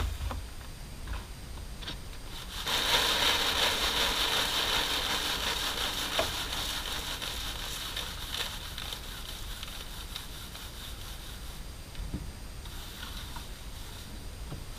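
Threshed hard red winter wheat being shaken through a plastic crate's coarse screen, the grain falling into a plastic bin below as a steady rushing rattle. It starts suddenly a few seconds in and slowly dies away as the last of the grain sifts out, the sign that the batch is done.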